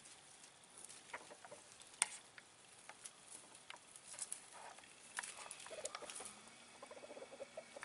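Faint, scattered clucks and soft calls of fowl, broken by occasional sharp taps and clicks.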